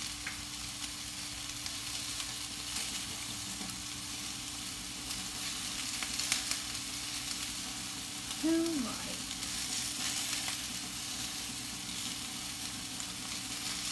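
Meatballs sizzling steadily as they fry in olive oil in a nonstick pan, with a few light clicks as tongs turn them. A short pitched sound comes about two-thirds of the way through.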